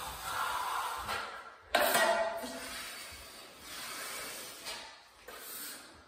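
Steel drywall knife scraping joint compound along a drywall butt joint in a few long strokes, the sharpest starting about two seconds in and fading away.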